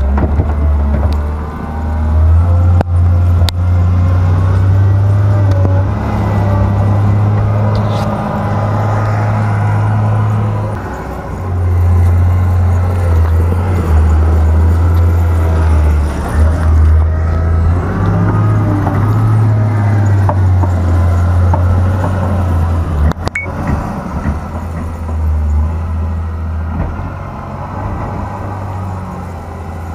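Diesel engine of a wheel loader working a front-mounted snow blower, running loud and steady, its pitch stepping up and down several times as the engine speed changes.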